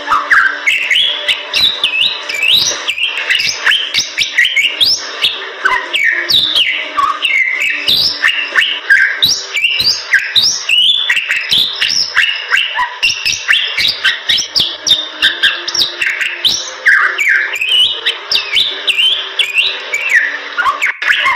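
Bali myna singing a fast, unbroken song of short whistled notes that sweep up and down, mixed with harsh chatter and sharp clicks.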